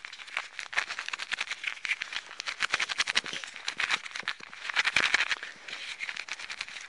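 Air-activated heat-pack insole being kneaded and shaken in the hands: the packet crinkles and its granular filling rattles in dense, fast crackles. Working air into the filling starts the heating reaction.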